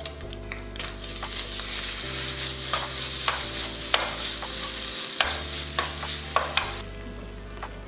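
Food sizzling in a hot frying pan while being stirred, with repeated clicks and scrapes of a utensil against the pan. The sizzling eases near the end.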